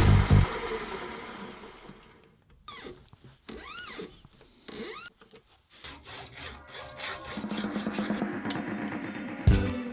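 Hand-tool work in a workshop: a few separate scraping strokes like sawing or filing, then a quicker steady run of strokes. Background music fades out at the start and comes back near the end.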